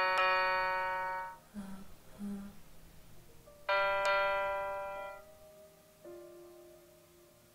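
Piano notes struck one at a time, near the start and about halfway, each fading slowly, for a vocal exercise that goes down in semitones from middle C. About two seconds in, a voice answers with two short "ha, ha" sounds.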